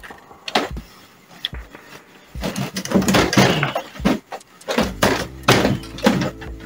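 Kyocera multifunction laser printer being handled and turned around on its cloth-covered stand: a few light plastic clicks, then a run of rubbing, scraping and knocks from its casing as it is shifted.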